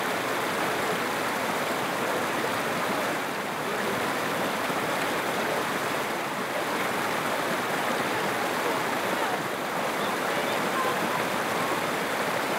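Steady rushing of a rocky stream pouring over a small waterfall into a pool.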